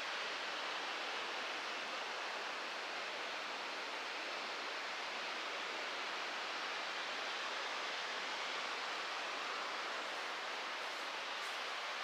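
Steady, even rush of falling water from a waterfall.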